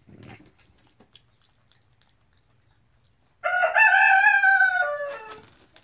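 A rooster crowing once, loud and close: a long held note starting about halfway in that steps down lower near the end.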